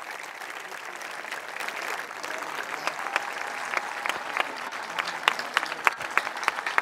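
Crowd applauding, with sharp claps from hands close by growing louder and more frequent from about two seconds in.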